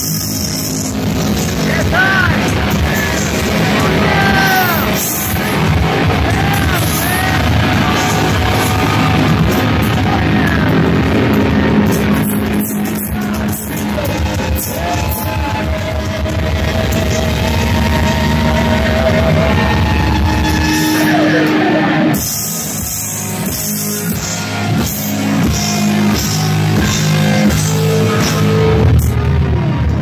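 Live rock band playing loud, with distorted electric guitars, drums and vocals. A little over 20 seconds in, the low end drops out and the sound thins and gets a little quieter.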